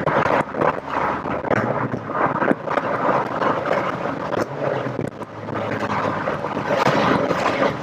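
Rover 1.8 K-series VVC four-cylinder engine and road noise heard inside a Rover Metro's cabin as the car is driven, a dense steady rumble recorded through a poor external microphone.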